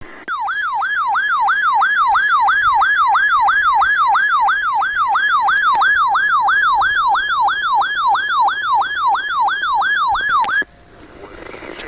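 Electronic siren-like emergency alert tone, warbling rapidly up and down about three times a second, loud and steady; it cuts off abruptly near the end.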